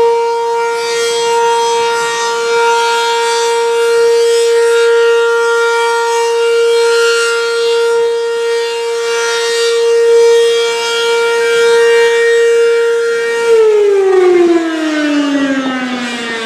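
B&N Mobil Directo BN52 electromechanical outdoor warning siren holding one steady tone, the Alert signal. About thirteen seconds in it begins to wind down, its pitch falling steadily.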